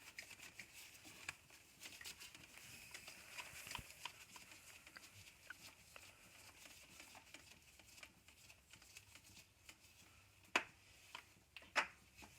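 Faint handling noises as the ATV's oil filter is unscrewed and pulled off over a drain pan: scattered small clicks and taps, with two sharper clicks near the end.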